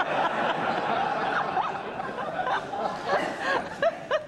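An audience laughing together, many voices overlapping.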